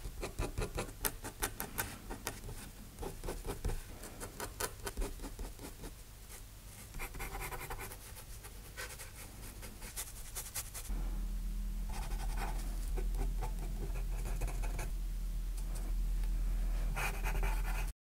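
Steel dip-pen (G-pen) nib scratching across paper in quick hatching strokes. About eleven seconds in, a low steady hum comes in, with softer brush strokes rubbing on the paper.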